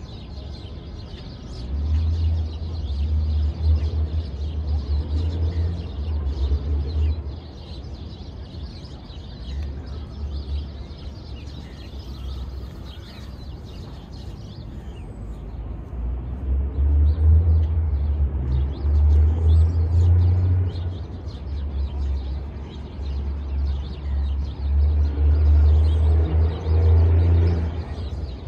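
City park ambience: a steady city hum with birds chirping, under a low rumble that swells from about two seconds in to seven and again from about sixteen seconds in to near the end.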